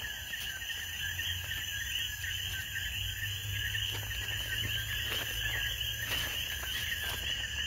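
Steady night chorus of crickets: a dense, continuous high trill, with a low rumble and a few faint ticks underneath.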